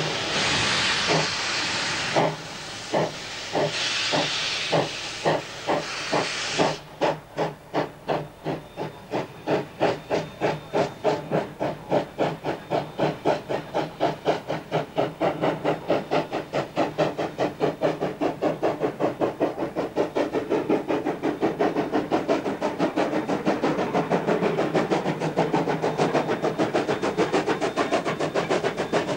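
Queensland Rail C17 class 4-8-0 steam locomotive starting a train: exhaust chuffs that quicken steadily as it gathers speed. For about the first seven seconds a loud steam hiss from the open cylinder drain cocks covers the beats, then cuts off suddenly.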